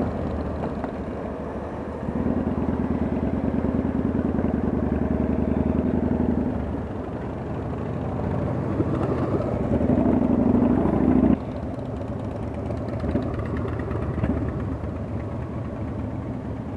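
Kawasaki VN900 V-twin cruiser engine running at low speed in slow group traffic, with other motorcycles around it. The level jumps up and down abruptly a few times, most sharply about eleven seconds in.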